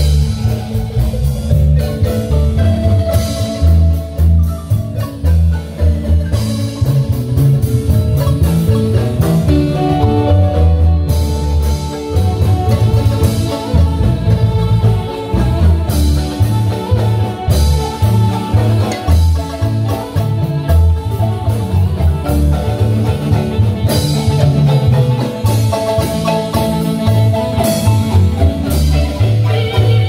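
Marimba band playing live and amplified: several players strike one large wooden marimba over a drum kit and a moving bass line.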